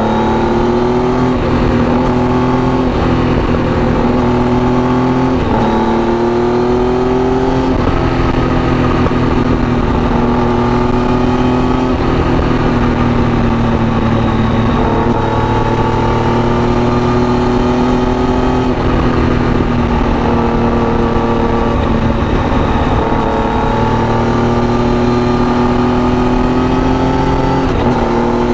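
Triumph Tiger 800's three-cylinder engine through an Arrow aftermarket exhaust, running under load as the motorcycle is ridden. Engine speed climbs and eases with the throttle, with several brief breaks in the note at gear changes.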